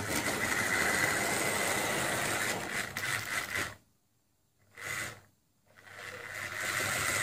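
Electric motor of a model tank engine locomotive running with a steady high whine as it tries to start a train uphill. The motor cuts out about four seconds in, gives a short burst near five seconds, then starts up again near the end.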